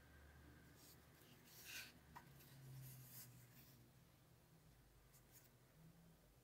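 Near silence with faint rubbing and scratching from a tablet in its case being handled, in a few brief bursts near the middle.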